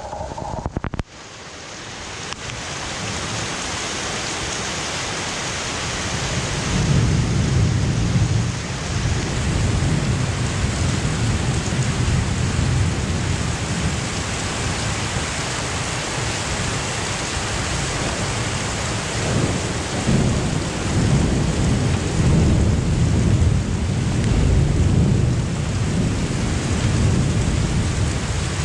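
Heavy downpour of a sudden summer thunderstorm, steady rain with rolling thunder rumbling low beneath it. The rain swells in over the first few seconds. The thunder is strongest from about seven seconds in and again around twenty seconds.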